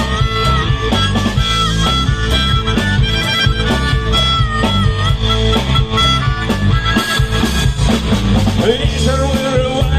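Instrumental intro of a rock band's song: a held, bending lead melody over drums, bass and guitar, with a voice starting to come in near the end.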